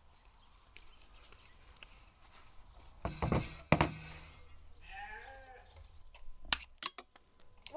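A short wavering animal call about five seconds in. A couple of dull knocks come before it, and a few sharp clicks follow near the end, the loudest sounds here.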